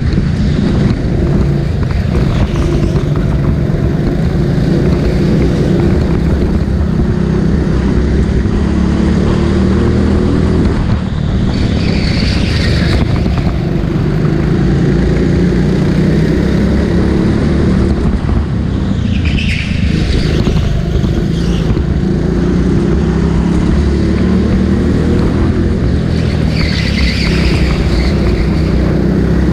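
Go-kart engine running hard on a circuit, its pitch rising and falling with the revs. Brief high squeals come three times.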